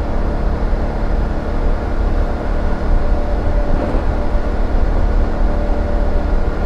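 BMW F850GS parallel-twin engine running at a steady, even pitch, with wind and road noise, as heard from the rider's position.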